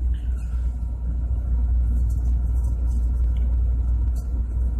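Steady low machinery rumble, with a light metallic click about four seconds in as a valve plate is handled.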